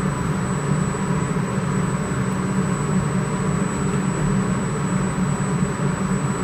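Steady low mechanical hum with hiss and a faint high-pitched whine, unchanging, with no distinct clicks or knocks.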